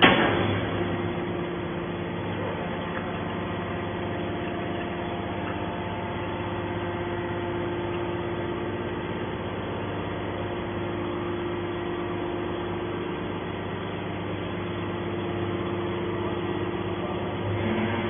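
Hydraulic scrap metal baler running with a steady hum and whine from its pump unit as the ejector pushes a compressed metal bale out of the press chamber. A sharp clank right at the start.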